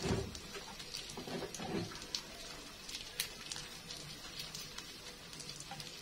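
Faint crackling of egg-coated bread frying in a nonstick pan, scattered sharp ticks throughout, with a couple of soft low thuds in the first two seconds.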